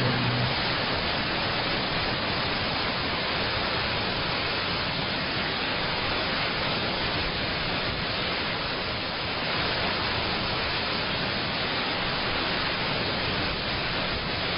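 Steady, even hiss like static, with no distinct events or tones.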